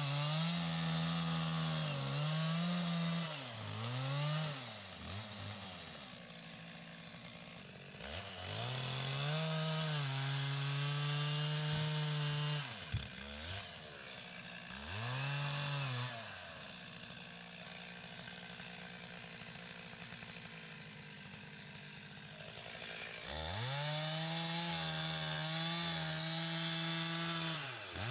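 Two-stroke chainsaw felling a Douglas fir: the engine is held at high revs while the chain cuts into the trunk, three times for a few seconds each. Between cuts it falls back to idle, with short blips of the throttle.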